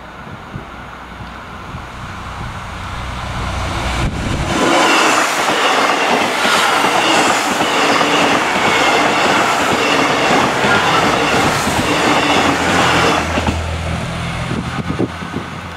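Two coupled Irish Rail 29000 class diesel multiple units passing close by. A low rumble builds as they approach, then about nine seconds of loud wheel-and-rail noise as the cars go past. It eases off to the low hum of the diesel engines as the rear car pulls away.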